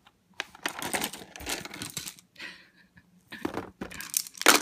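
Plastic baby toys clattering and rattling against a plastic seat tray: irregular clicks and clacks, with a louder knock near the end.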